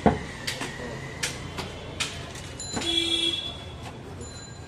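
A sharp knock right at the start, the loudest sound, followed by scattered lighter clicks and clatter, with a brief steady tone about three seconds in.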